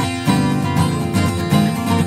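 Background music: strummed and plucked acoustic guitar playing a lively, rhythmic tune.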